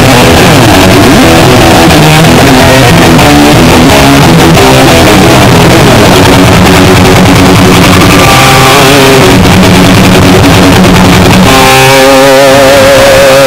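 Loud distorted electric guitar played live, a run of changing notes giving way near the end to long held notes with wide vibrato; the recording is overloaded and clipped.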